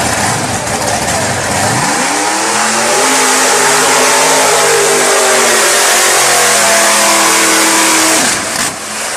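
Lifted mud bog truck's engine revving hard at full throttle as it charges through the mud pit. The pitch climbs steeply about two seconds in, holds high for several seconds, then drops off near the end, with a hiss of mud and tyres spraying throughout.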